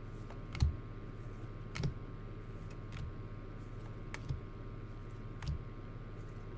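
Paper baseball cards being laid down one at a time: five soft taps, evenly spaced a little over a second apart, over a faint steady hum.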